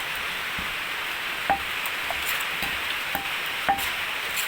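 Wooden pestle knocking in a mortar while papaya salad is pounded and mixed: about seven short knocks, each with a brief ring, spaced irregularly under a steady hiss.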